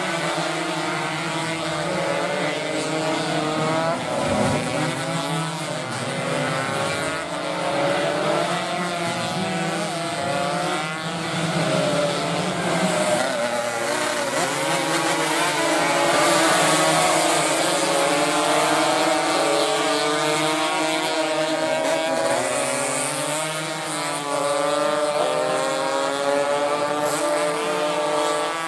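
Several small racing motorcycles pass close by, their engines revving up and down through the gears, with the overlapping engine notes rising and falling as each bike goes by.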